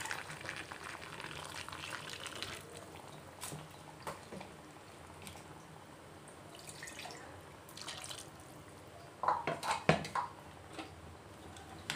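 Water being poured into a pressure cooker pot of chicken curry, rushing and splashing for the first couple of seconds, then quieter trickling, with a few sharp knocks about nine to ten seconds in.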